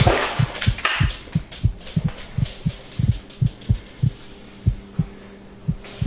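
Rapid heartbeat sound effect: short, low, even thumps about three to four a second over a steady low hum.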